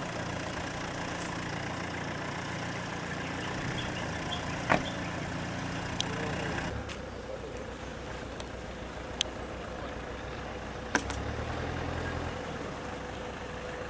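A steady low mechanical hum, like an engine running, that shifts lower about seven seconds in, with a few sharp clicks over it.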